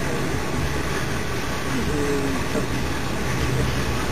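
Steady rumble and rolling noise of a moving passenger train, heard from inside the carriage.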